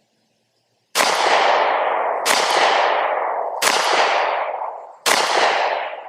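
Springfield Armory Hellcat Pro 9mm pistol firing four shots about 1.3 seconds apart, the first about a second in, each one echoing as it dies away.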